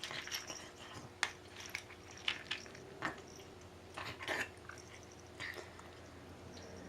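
A pet eating: irregular crunching clicks of chewing and biting food, a few close together about four seconds in.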